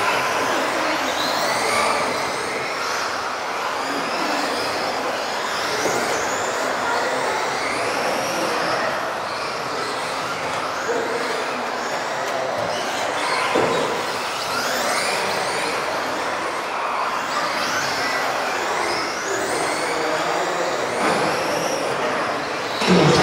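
Several electric off-road RC racing cars driving laps, their motors whining high and overlapping, the pitch rising and falling again and again as they speed up and slow down.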